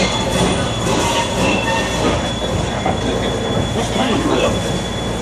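Train pulled by the New Hope Valley No. 17 steam locomotive rolling along, heard from on board: a steady rumble and clatter of wheels on rails, with short high squeals from the wheel flanges.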